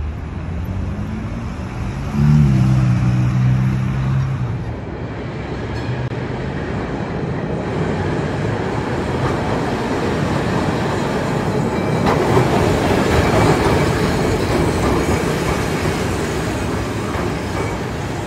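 A Ferrari sports car's engine revs up briefly at the start. Then a vintage Milan tram (ATM Class 1500 'Ventotto') rolls past on its rails, loudest a little past the middle.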